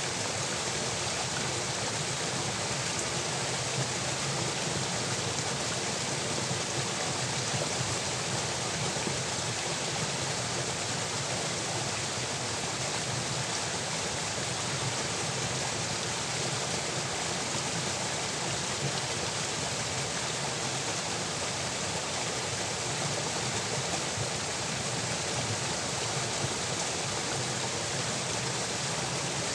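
Steady rush of water flowing along an irrigation channel and out through a culvert, an even noise with no breaks.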